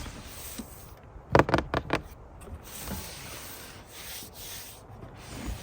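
Packaging being handled during an unboxing: rubbing and scraping sounds, with a quick cluster of louder knocks and scrapes about a second and a half in.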